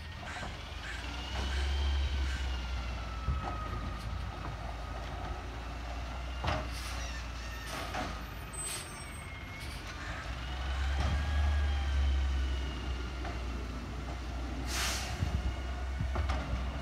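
Garbage truck collecting bins: its engine revs up twice, with a whine that rises and falls, a few clunks, and a short air-brake hiss near the end.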